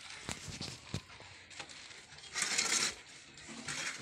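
Lychees being peeled by hand and a plastic bag being handled: a few light clicks, then a half-second burst of rustling and crackling a little past the middle, and a shorter one near the end.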